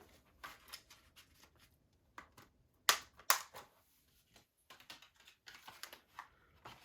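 Hands handling a plastic 4K Blu-ray disc case: light tapping and rustling, with two sharp clicks close together about three seconds in.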